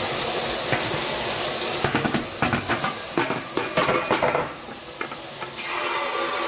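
Kitchen tap running hard into a stainless steel sink, with a run of metallic knocks and clatter about two seconds in. Near the end the stream falls onto a perforated stainless steamer insert held under the tap.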